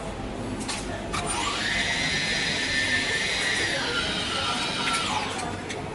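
A small electric motor whines up about a second in, runs at a steady pitch for about four seconds, then winds down near the end.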